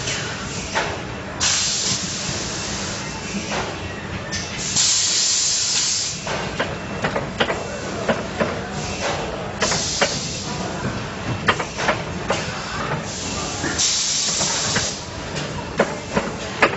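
Compressed air hissing in four separate bursts, each about a second long, on a tyre building machine, with short clicks and knocks of the machine and the hand work on the drum between them.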